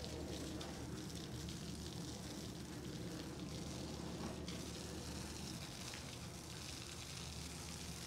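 Pressure washer spraying water in a steady hiss, over the even running of an engine.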